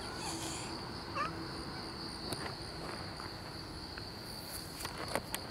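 Steady high-pitched insect drone, with a couple of short chirps and a few footsteps on pavement near the end.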